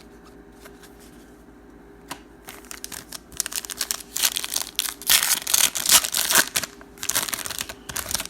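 Plastic wrapper of a trading card pack being torn open and crinkled. Quiet for the first couple of seconds, then a run of irregular crackling rustles, loudest in the middle.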